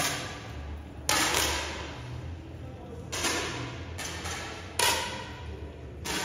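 10 m air rifles firing along a line of shooters: five or six sharp pops from different firing points, irregularly spaced, each followed by a short echo in the hall.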